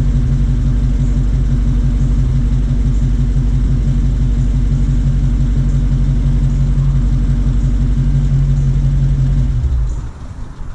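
Dodge Challenger 392's 6.4-litre HEMI V8 idling steadily through its factory exhaust, with a deep, even pulse. It stops near the end.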